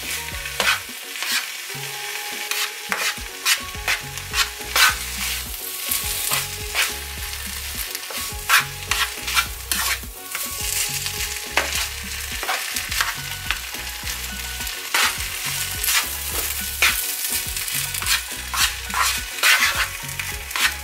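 Fried rice sizzling in a hot nonstick frying pan while it is stirred and turned with a spatula. The spatula scrapes and knocks against the pan in frequent, uneven strokes over a steady sizzle.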